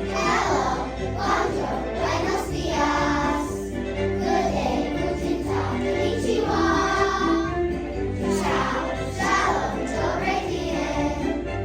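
A choir of young children singing together with musical accompaniment.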